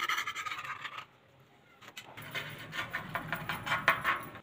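Metal spoon scraping across an iron tawa in two spells, a short one at the start and a longer one of rough strokes from about two seconds in.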